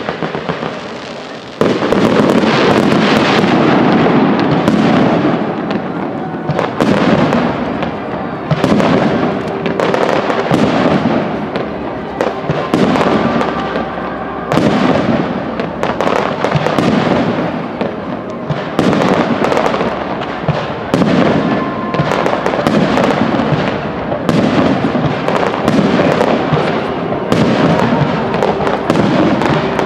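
Fireworks display: aerial shells going off in rapid, overlapping bangs, starting abruptly about a second and a half in and continuing without a break.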